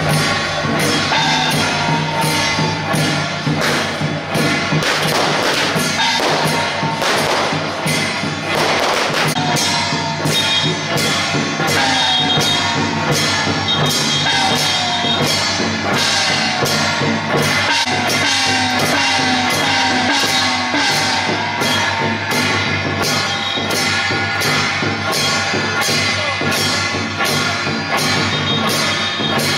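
Procession music: a steady, loud drum and percussion beat with a high melodic line above it that makes repeated short downward slides.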